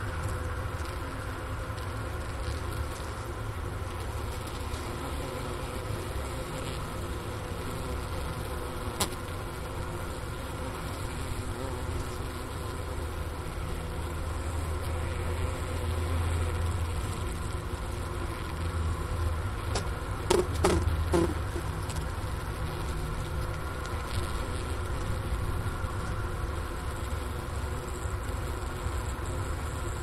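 Honeybee winter cluster humming steadily inside the hive: a low drone with higher overtones above it, picked up close at the inner-cover hole. There is a single sharp click about a third of the way in, and a short cluster of knocks about two-thirds through.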